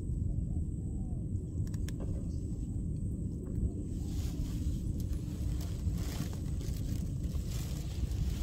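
Steady low rumble of wind buffeting the microphone, with a few faint clicks in the first few seconds.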